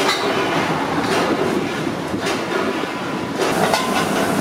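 Steady mechanical din of workshop machinery, with scattered sharp metallic knocks. About three and a half seconds in, the low rumble grows stronger as the shot moves to a belt-driven polishing spindle working a cooker lid.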